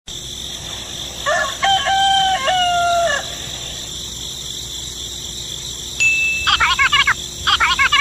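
A rooster crows once, about a second in, a stepped call lasting about two seconds over a steady high background hiss. From about six and a half seconds, rapid high chirping comes in short clusters.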